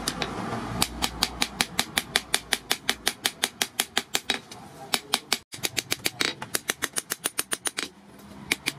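Hand hammer striking a steel knife blade made from a brake disc on a small steel post anvil, in rapid light blows about five a second, shaping the blade. The blows break off for a moment about five and a half seconds in and pause briefly near the end.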